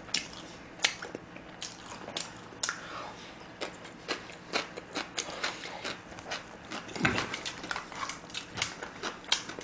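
A man chewing food close to the microphone: irregular wet smacking and clicking mouth sounds, a few a second, with a short low hum about seven seconds in.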